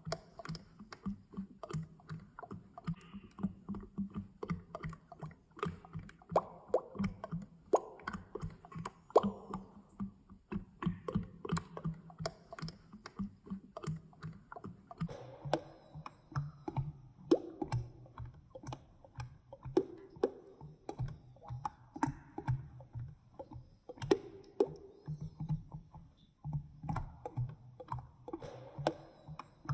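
Oil sloshing, a rapid, irregular run of wet plops and clicks over a low hum.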